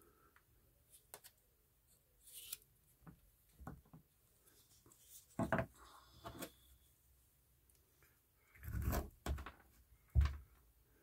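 Soft scattered rustles, scrapes and light clicks of hands and a plastic dibber working compost while pricking out onion seedlings into a cell tray, with a few louder handling noises near the end.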